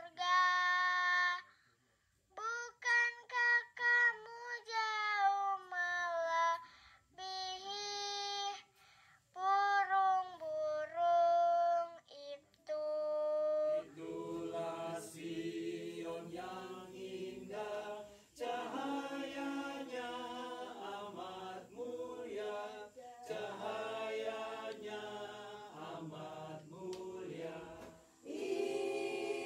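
A young girl sings solo and unaccompanied in separate phrases with short gaps. About halfway through, a group of mixed voices takes over, singing together without instruments. Near the end the group breaks briefly and singing starts again.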